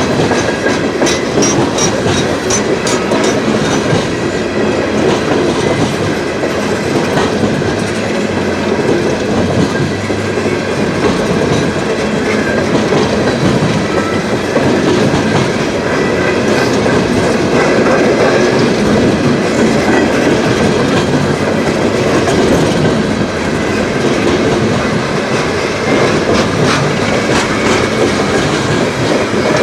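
CSX freight train rolling past, its cars' wheels clicking steadily over the rail joints.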